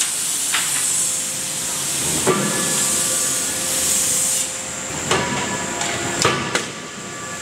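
Drop-forging shop noise: a loud steady hiss that fades about four and a half seconds in, with several sharp metallic clanks, some of them ringing on briefly.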